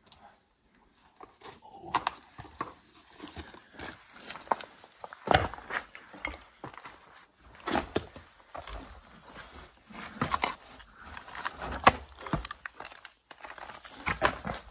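Footsteps scuffing and crunching on dry rock and gravel, with irregular knocks, starting about two seconds in.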